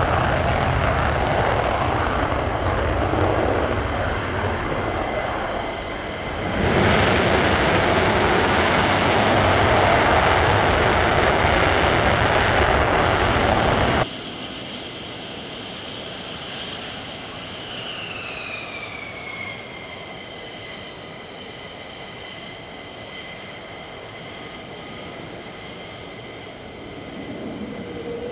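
F-35 Lightning II taking off on afterburner: a loud, deep jet roar that jumps louder and brighter about six and a half seconds in. About halfway through it cuts off abruptly to the much quieter whine of an F-15E Strike Eagle's twin jet engines as it taxis, a high tone that falls and then holds steady.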